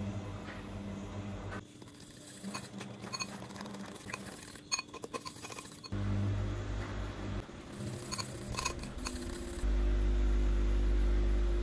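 Metal fork clinking and scraping against a ceramic bowl while stirring pancake batter, in a scattered series of sharp clicks.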